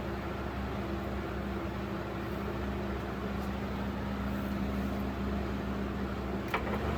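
Patton CA-1285 12-inch box fan running steadily on medium speed: an even motor hum with air rushing off its plastic, steeply pitched blade. A single click near the end.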